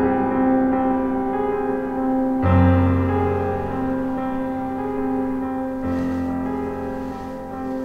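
Background piano music: slow, sustained chords, with a new chord struck twice.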